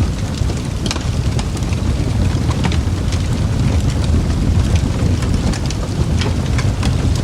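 Crackling wood fire: a steady low roar with sharp pops and crackles scattered at irregular moments.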